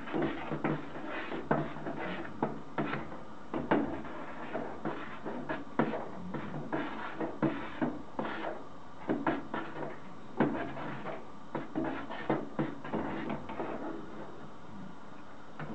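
A stirring utensil knocking and scraping against the sides of a stainless steel stockpot, irregular clinks one or two a second, as grated soap is stirred into hot water to dissolve it. The knocking stops near the end.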